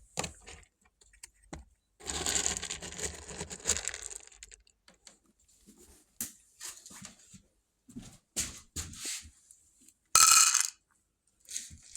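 Close handling noises: a couple of seconds of rustling about two seconds in, scattered clicks and taps, and a short, loud scrape about ten seconds in.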